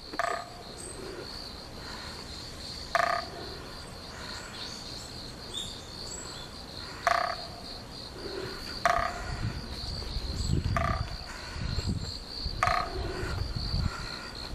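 An unidentified animal call, a short note with several pitches sounding together, repeated six times at gaps of two to four seconds, over a continuous high-pitched pulsing trill.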